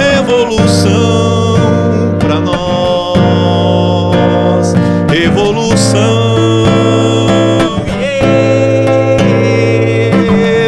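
Live acoustic song: a strummed acoustic guitar with a man singing long held notes over it.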